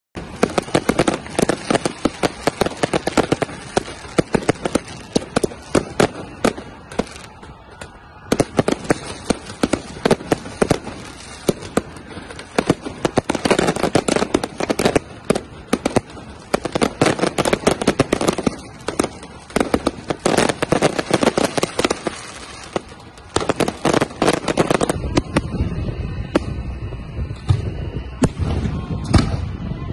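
Fireworks display: a dense, continuous barrage of bangs and crackles, thinning briefly a couple of times. Near the end a steady low rumble joins the bangs.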